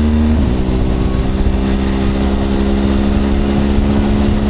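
BMW R1200GS Adventure's flat-twin boxer engine running at a steady cruising pitch, under constant wind and road noise on a wet road.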